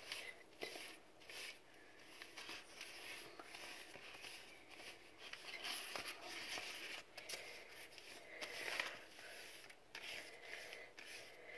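Faint, irregular brushing of a paintbrush stroking wet paint across paper.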